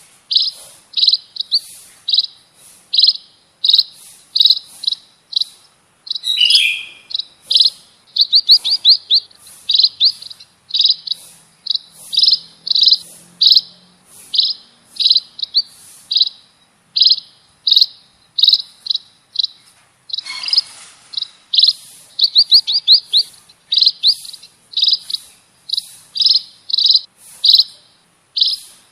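A small finch-like songbird, the Indonesian 'burung pipit', chirping loudly and steadily in short, sharp, high notes about twice a second. A few quick runs of rapid notes come about 8 and 22 seconds in, a falling call about 6 seconds in, and a brief rough burst about 20 seconds in.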